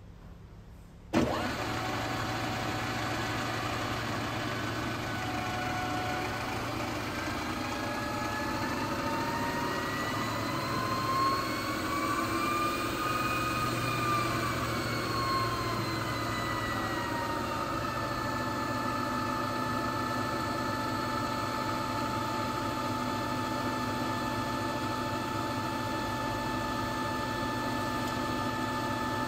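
The variable-speed vertical spindle of a Phoebus PGM-GVS300A milling machine switches on about a second in, with a sudden start, and runs with a steady hum. Its whine rises in pitch as the speed handwheel is wound up, then falls back and settles to a steady pitch again.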